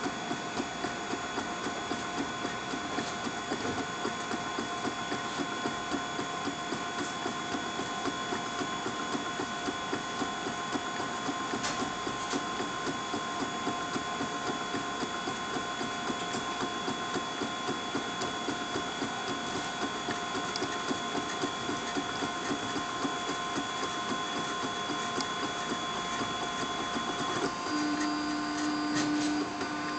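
Ultimaker 3D printer running a print, its stepper motors whining in steady tones over a fast, busy rhythm as the print head moves. About four seconds before the end the tones shift and a low steady hum comes in.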